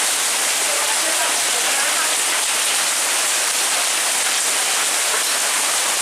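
Heavy rain mixed with small hailstones, pouring down steadily.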